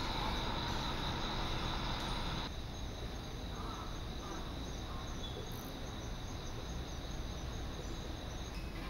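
A steady, high-pitched insect chorus, with a broad city-traffic hiss under it that drops away about two and a half seconds in, and a low rumble beneath.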